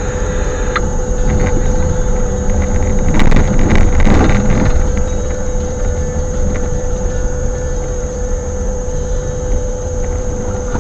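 Strong wind buffeting the microphone in a low, rumbling roar that swells in a gust about three to four and a half seconds in, then eases back.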